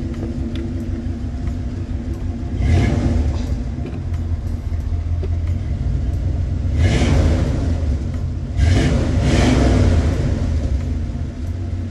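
Box Chevy's engine running with a steady low rumble, swelling louder three times.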